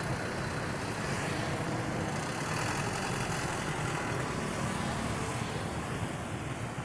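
Steady road traffic noise: the engine and tyre rumble of passing vehicles.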